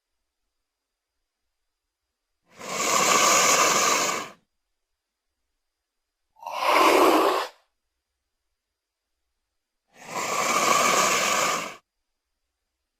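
Three separate breathy exhale sound effects for a Utahraptor (a large raptor dinosaur), each followed by silence. The middle one is shorter and lower.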